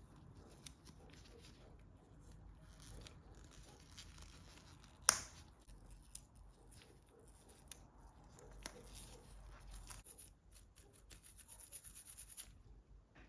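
Faint rubbing and scratching of hand work, with scattered light clicks and one sharp click about five seconds in.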